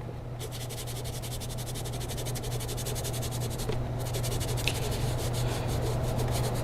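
A foam polishing pad being scrubbed with a stiff brush to clear out caked polish, a fast, even rubbing that grows louder, over a steady low hum.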